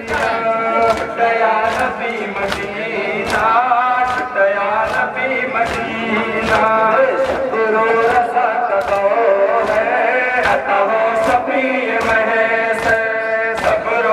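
Male voices chanting a Muharram mourning lament (noha) over horn loudspeakers, with the crowd joining in. Rhythmic chest-beating (matam) slaps come about twice a second, keeping the beat.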